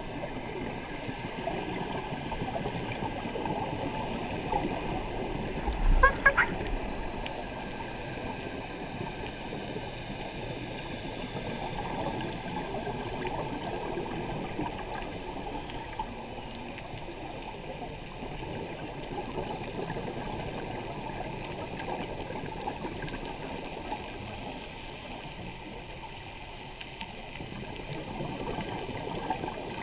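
Muffled underwater sound through a camera housing: a scuba diver's breathing, with bubbles gurgling steadily and a regulator hiss every eight or nine seconds. About six seconds in there is a brief louder knock with a short squeak.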